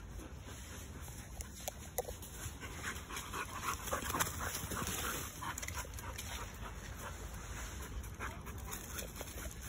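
A dog panting as it runs over dry leaf litter, its paws rustling and crackling through the leaves. The sound is loudest about four seconds in, as the dog passes close by.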